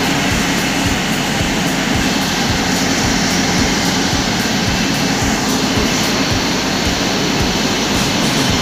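Copper wire machine line running with a loud, steady mechanical din.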